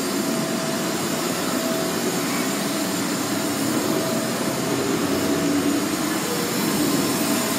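Steady, even hiss with a crowd murmuring beneath it, alongside a replica steam locomotive at a busy train platform.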